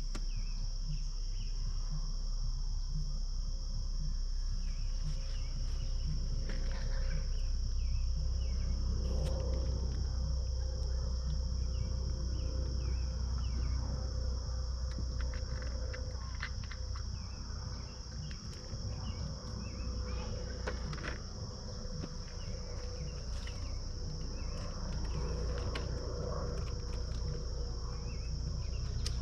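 Steady high chorus of crickets trilling over a low steady rumble, with a few faint scattered clicks.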